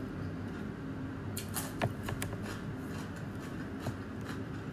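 Close-up eating sounds: chewing with a quick run of wet mouth clicks and lip smacks about a second and a half in, and one more near the end, over a steady low hum.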